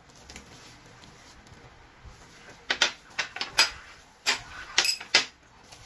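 Bowls and a utensil clinking and knocking against each other: about seven sharp knocks starting about halfway in, some with a brief metallic or glassy ring.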